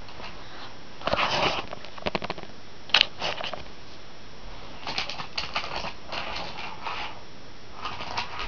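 Small Take Along Thomas die-cast toy engines and plastic track being handled: scattered clicks and rattles in short clusters, with one sharp click about three seconds in.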